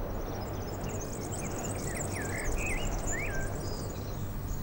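Outdoor ambience: a bird sings a few short, gliding chirps in the middle, over a steady high shimmer of insects and a low background rumble.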